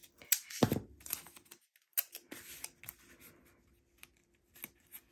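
Masking tape pulled off its roll with a short ripping noise and torn off, then light clicks and rubbing as it is pressed down onto fabric wrapped over foam board.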